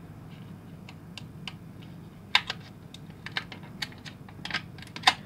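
Small clear plastic parts case being pried open and handled: a scatter of small, sharp plastic clicks, two of them louder, about two and a half seconds in and near the end.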